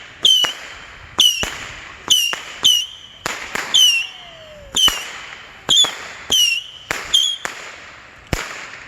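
Saturn missile battery firing: a rapid, irregular string of sharp cracks, about two a second, each with a short falling whistle.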